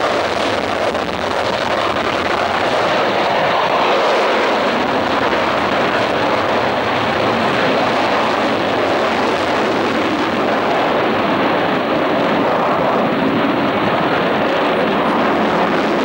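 Avro Vulcan XH558's four Olympus turbojets at high power as the delta bomber climbs away after take-off: loud, steady jet noise, its highest part thinning out a little about ten seconds in as the aircraft draws away.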